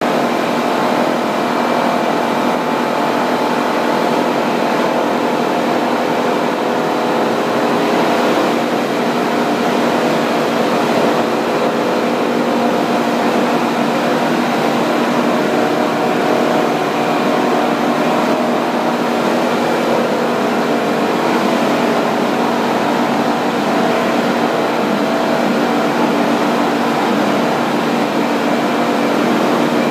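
A waste PE/PP plastic film crushing and washing line running: its electric motors, conveyors and screw loader give a loud, steady mechanical drone with several steady hum tones.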